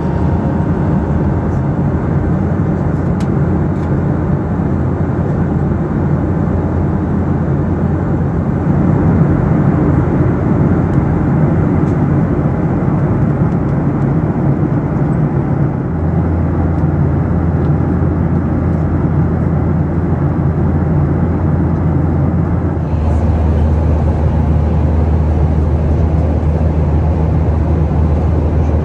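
Inside the cabin of a Boeing 737-800: the steady noise of its CFM56 jet engines and the airflow. The low drone steps up about 16 seconds in and again about 23 seconds in.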